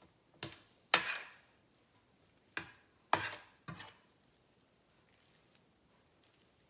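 Metal spoon clinking against a stainless steel mixing bowl while stirring sliced raw beef in its marinade: five sharp, ringing clinks in the first four seconds, the loudest about a second in.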